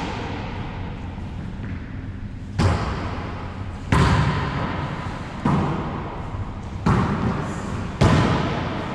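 Wallyball rally: the rubber ball struck and bouncing in play, five sharp smacks a second or so apart, each ringing out in the enclosed walled court.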